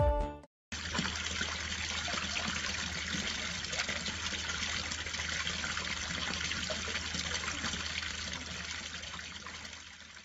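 Water pouring and splashing over a small garden fountain, a steady trickle and splash. The tail of a piece of music cuts off in the first half second.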